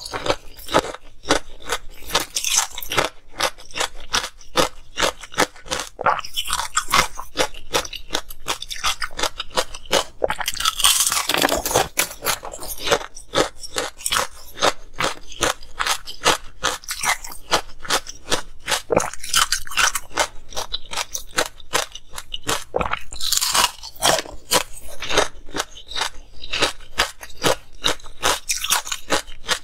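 Close-miked crunching and chewing of ice with pomegranate seeds frozen in it: a dense, continuous run of sharp cracks and crunches, with a few louder bites along the way.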